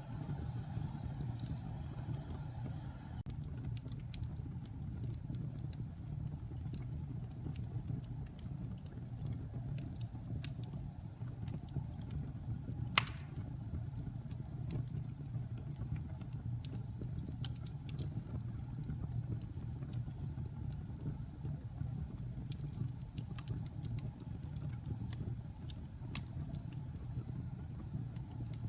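Wood fire burning in a fireplace: a steady low rumble of flames with scattered crackles, and one sharp loud pop about halfway through.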